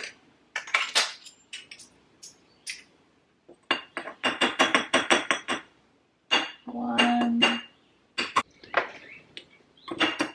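Metal measuring spoons clinking and tapping against spice jars while spices are measured out, including a quick even run of about seven taps a second between roughly four and six seconds in.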